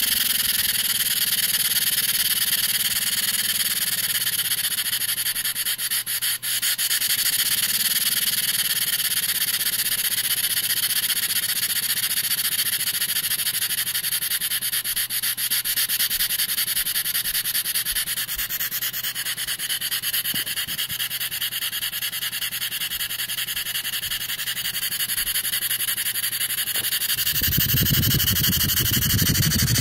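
Stuart 10V model vertical steam engine running on compressed air at reduced pressure, its exhaust giving a rapid, steady hissing chuff. A low rumble joins near the end.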